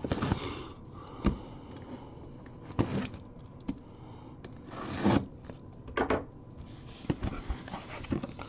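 Cardboard boxes scraping and bumping against each other and against the cardboard case as sealed hobby boxes are pulled out: a scattering of short scrapes and knocks.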